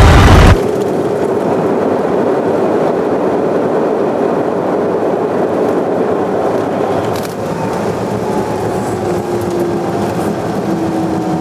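Background music cuts off about half a second in, leaving the steady rumble and hiss of an airliner cabin as the plane rolls along the runway, with faint whining tones and a few light clicks.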